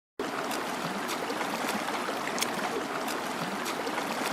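Stream water rushing and splashing steadily, cutting in abruptly just after the start, with small sharp splashes through it.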